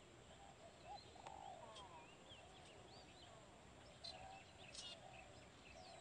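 Faint bird chirps and twitters: short, scattered rising and falling calls over a quiet steady background hiss.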